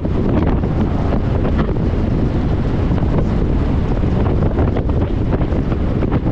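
Loud, steady wind rushing and buffeting on the microphone, gusting unevenly without a break.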